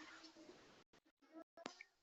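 Near silence: faint room tone with a few soft clicks in the second half.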